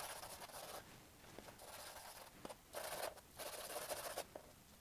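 Stick of charcoal scratching across drawing paper in about four short shading strokes, faint, with brief pauses between them.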